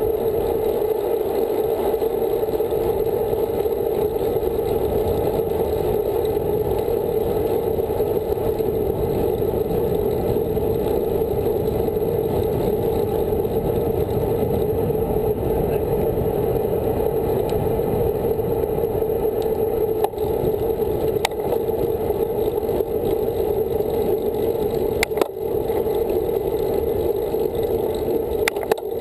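Steady rush of wind and tyre noise from a road bike riding on asphalt, picked up by a camera mounted on the aerobars, with a few sharp clicks in the second half.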